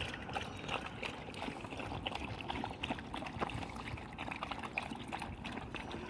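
Several dogs lapping water from a plastic bucket together: a quick, irregular run of small wet laps and splashes.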